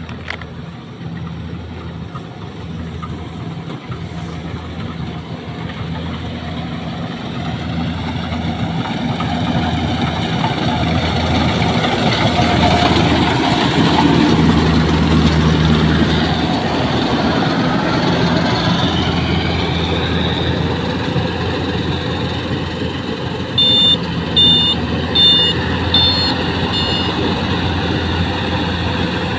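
Rice combine harvester's engine running steadily, growing louder through the first half. About three quarters of the way through, a run of about six short high-pitched beeps sounds, like a reversing alarm.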